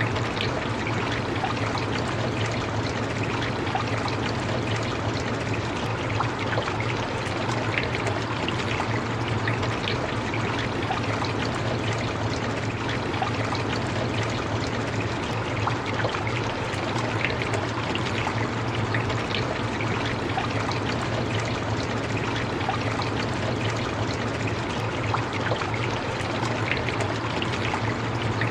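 Steady rain falling: an even hiss with individual drops ticking through it and a steady low rumble beneath.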